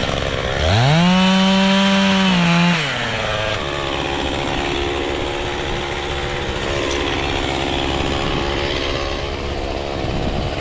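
Chainsaw revving up to full throttle about half a second in and holding there for a couple of seconds. About three seconds in its pitch drops, and it runs on lower and rougher under load as the chain cuts into the trunk.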